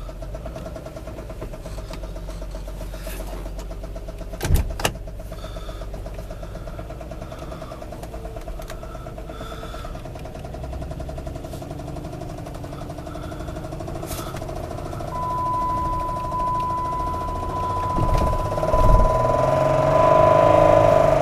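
2007 Dodge Charger's 3.5-litre V6 running, with a knock that the owner places in the top end. Two sharp clicks come about four and a half seconds in, a steady high whine joins about two thirds of the way through, and the engine grows louder near the end.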